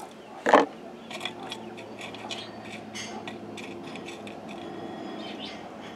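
Small drainage pebbles clinking into a cement plant pot: one sharp clatter about half a second in, then scattered light clicks as the stones are settled by hand.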